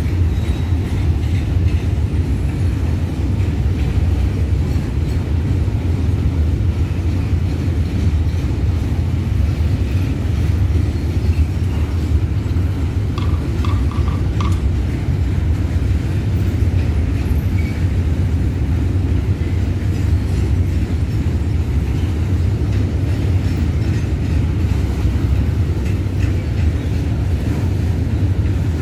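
Empty open-top coal wagons of a freight train rolling past on the rails, a steady low rumble of wheels and running gear. A few short, faint high tones sound about halfway through.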